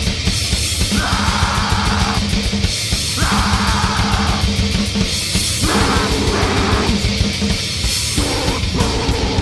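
Lo-fi death/grindcore demo recording: heavily distorted guitars and fast drumming in a dense, loud wall of sound, with several harsh noisy bursts, each about a second long, over the top.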